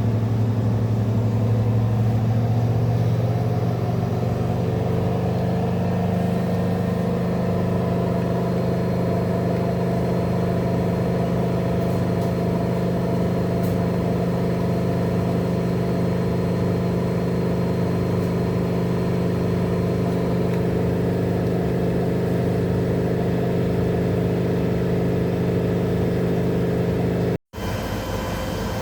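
Rex-Electrolux RJ 7160 TA washing machine running with a steady motor hum, its pitch shifting slightly over the first few seconds. The sound drops out briefly near the end and comes back with a different tone.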